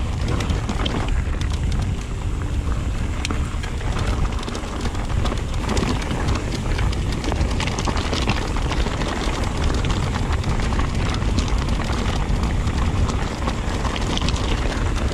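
Mountain bike tyres rolling fast over loose, dry gravel, with stones crunching and pinging and the bike rattling, under steady wind rumble on the microphone.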